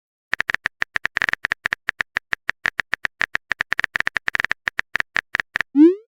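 Phone-keyboard typing sound effect: a fast run of short, identical clicks, about eight to ten a second, stopping near the end, followed by a short rising swoop like a message-sent sound.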